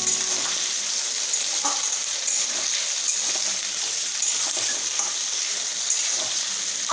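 Sliced onions and whole spices sizzling steadily in hot oil in a metal kadhai, with light scrapes and ticks of a spatula stirring them.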